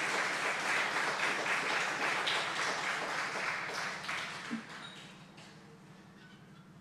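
A small audience clapping, the applause dying away about five seconds in.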